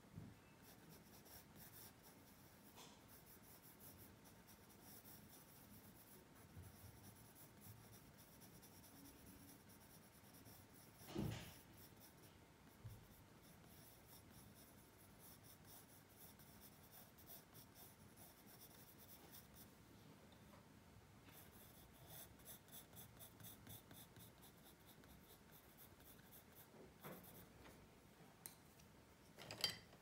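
Pencil scratching faintly on paper in runs of quick strokes, with a single knock against the drawing surface about a third of the way through.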